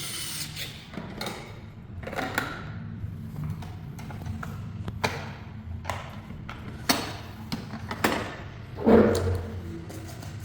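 Irregular knocks, clicks and scrapes of a rice cooker's parts being handled and fitted back together, with a heavier thump about nine seconds in.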